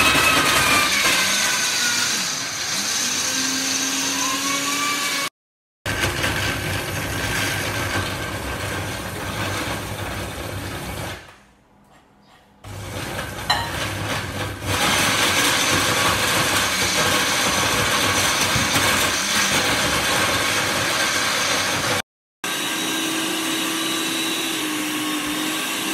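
Countertop blender running, grinding nuts and pitted dates into a sticky laddu mixture. It stops for about a second and a half near the middle and then starts again.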